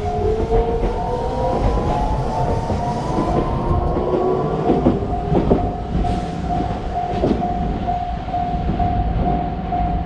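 Japanese level-crossing warning bell ringing its rapid, evenly repeated ding while an electric train passes. The train's rising motor whine climbs in pitch over the first few seconds, and a few wheel clacks come near the middle over a steady rumble.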